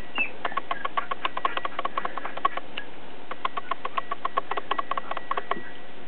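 Two chihuahua puppies scuffling in play: quick irregular clicks and light taps, several a second, with a brief high squeak at the start.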